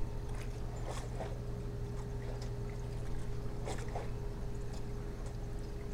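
Small waves lapping and trickling against the rocky shoreline, heard as scattered short splashy sounds over a steady electrical hum from the camera's microphone system.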